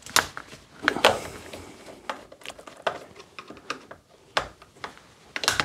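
Screwdriver working on a thermal overload relay screwed onto a contactor, with irregular sharp clicks and taps of metal tool on plastic housing and small parts as it is taken apart.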